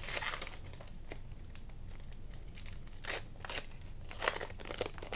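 Foil trading-card pack wrapper being torn open and crinkled by hand, in a few short crackling bursts.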